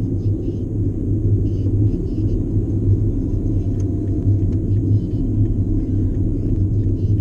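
Steady low rumble of road and engine noise heard inside the cabin of a car driving along a highway.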